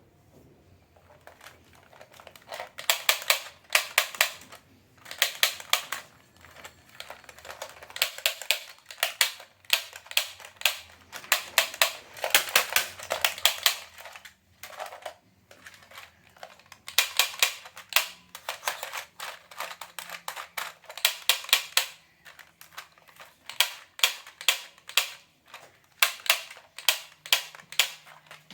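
Plastic toy guns clicking in quick trains of sharp clicks, in bursts of a few seconds with short pauses between.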